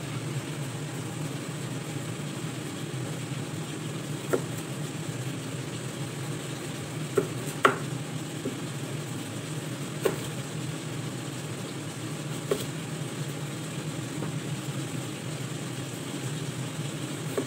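A kitchen knife knocking on a cutting board while cutting carrot: about six short, sharp knocks a second or more apart, the loudest a little before halfway, over a steady low hum.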